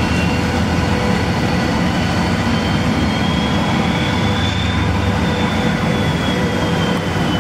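Kvaerner Fjellstrand FlyingCat 40 catamaran fast ferry's engines running loud and steady, with water churning at the stern. Over the low rumble a high whine rises a little about halfway through, then sinks back.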